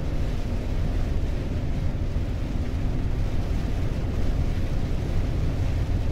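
Steady low drone of a Volvo truck's engine and road noise, heard from inside the cab while driving at cruising speed.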